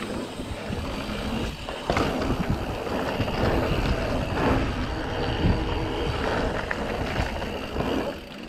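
Orbea Occam AM mountain bike rolling fast along dirt singletrack: steady tyre noise on the dirt with a constant run of rattles and knocks from the bike over bumps, a sharper knock about two seconds in.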